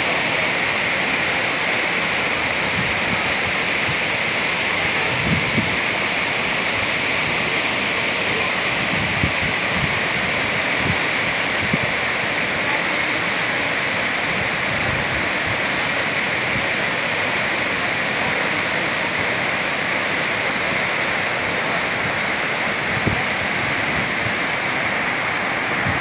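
Tortum Waterfall, a large waterfall, pouring over a cliff: a loud, steady rush of falling water. A few brief low thumps stand out, one about five seconds in and another near the end.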